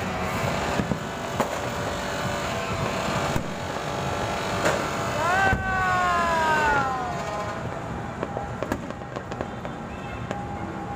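Fireworks bursting and crackling over a steady city din, with scattered sharp pops. About halfway through comes a long pitched tone that rises and then falls away.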